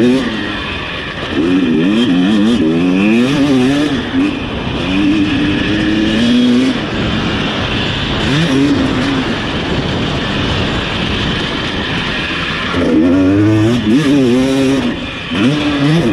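Husqvarna TC250 single-cylinder two-stroke motocross engine under hard riding, its pitch repeatedly climbing and dropping as the throttle opens and gears change. The pitch holds steadier for a few seconds midway, then rises and falls in quick sweeps again near the end.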